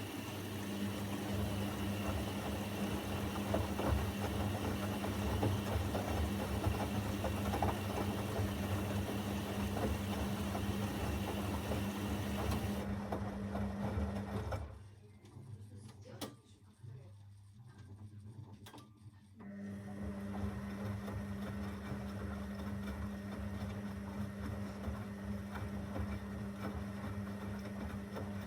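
Zanussi FL984CN front-loading washing machine tumbling its drum, a steady motor hum over the wash sound. The motor stops for about five seconds midway, then starts the drum again.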